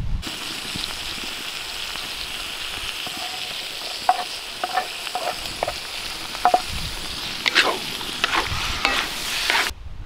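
Chopped peppers and tomatoes sizzling in hot oil on frying lamb pieces in a metal cauldron over a wood fire. From about four seconds in, a wooden spatula scrapes and knocks against the pan as the food is stirred. The sizzling stops abruptly just before the end.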